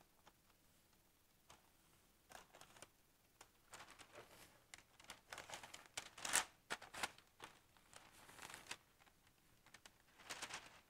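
Faint, intermittent crinkling and rustling of parchment paper as dry almond flour is poured off it into a sieve, with one louder crackle a little past the middle.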